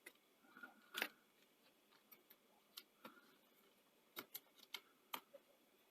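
Near silence with a few faint, scattered clicks and ticks from Wi-Fi antenna cables and small plastic parts being handled inside an open laptop chassis.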